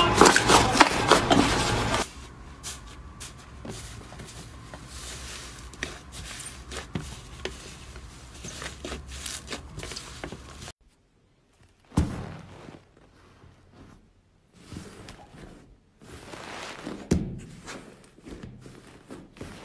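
Hands squeezing and kneading fluffy slime: a dense run of soft, sticky crackles and squishes, louder for the first two seconds. After a short break about ten seconds in, the squeezes come separately, with pauses between them.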